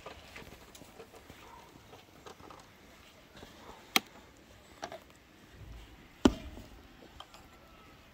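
Sharp knocks over a faint background: two loud ones a little over two seconds apart, with a few softer taps between them.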